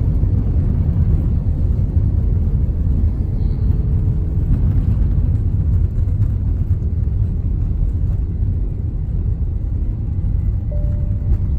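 Steady low rumble of an Airbus A321 airliner, heard from inside the cabin during its landing.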